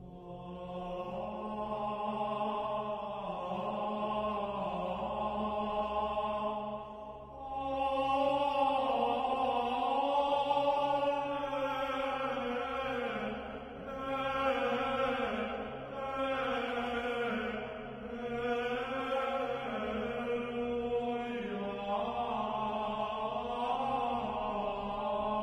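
Slow, chant-like vocal music: long held, slowly shifting voices over a steady low drone.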